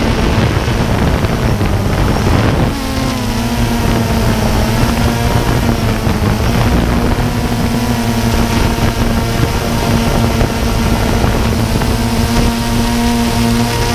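Quadcopter electric motors and propellers whirring, with wind buffeting the microphone. About three seconds in, the rough noise settles into a steadier hum with a clear pitch that wavers a little.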